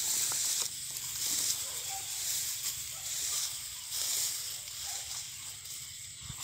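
Feet pushing through dry grass and stubble: a high rustling hiss that swells and fades irregularly. Two faint short tones sound about two and five seconds in.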